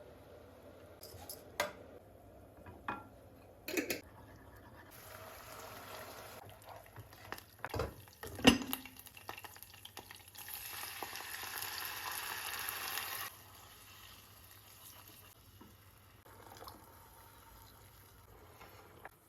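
Kitchen handling sounds: scattered clicks and knocks of dishes and utensils, the loudest knock about eight and a half seconds in, then a steady hiss lasting about three seconds.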